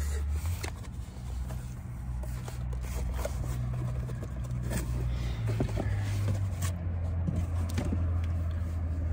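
Cardboard packaging being handled: an inner box drawn out of its outer carton, with scattered scrapes, rustles and taps, over a low steady rumble.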